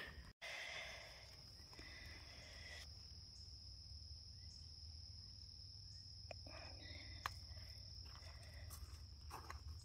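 Faint, steady high-pitched drone of crickets, with one sharp click about seven seconds in.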